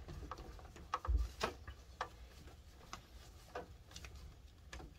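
Irregular faint plastic clicks and rubbing, with a soft thump about a second in, as a Chungho Nice interlock-type filter cartridge is twisted tight into its water purifier housing.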